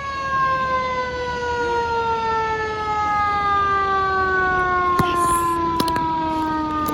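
Fire engine siren winding down, its pitch falling slowly and steadily throughout, with a couple of sharp clicks about five seconds in.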